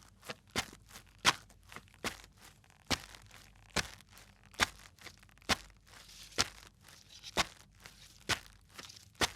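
Leather Kolhapuri chappals walking at a slow, steady pace: a sharp slap with each step, about once a second, with softer clicks from the sandals between the steps.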